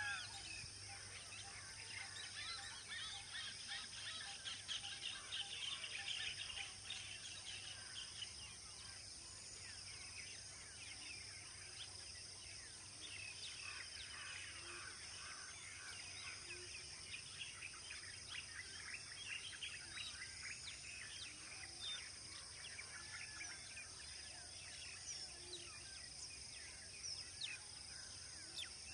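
Many wild birds chirping and calling at once, a dense chorus of short quick notes that is thickest about four to seven seconds in and again around fifteen seconds. Under it runs a faint, steady high-pitched hum.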